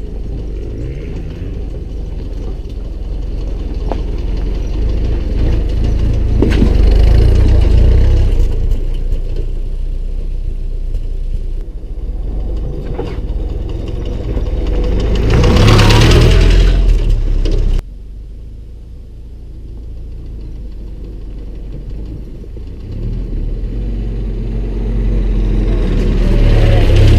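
Willys CJ3A jeep's four-cylinder flathead engine running as the jeep drives over a dirt track, growing louder as it comes close about seven and again about sixteen seconds in. The sound drops suddenly at about eighteen seconds, then builds again near the end.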